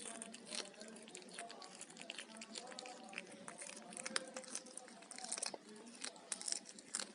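Cat chewing fish: an irregular run of small crunches and wet clicks of biting and tearing.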